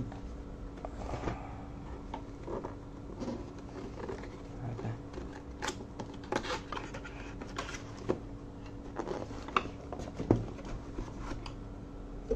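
Cardboard keyboard box being opened and unpacked by hand: scattered scrapes, rustles and light knocks of cardboard and packaging.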